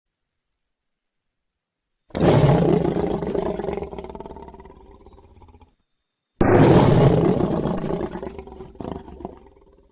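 Two lion-like griffon roars from a sound-effects set, separated by dead silence. Each breaks in suddenly at full strength and fades away over about three and a half seconds. The second starts about a second after the first cuts off.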